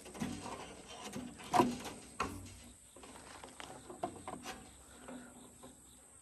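Pliers working a spring clamp on an old rubber hose on a small garden-tractor engine: scattered small metal clicks and scrapes, the sharpest about a second and a half in.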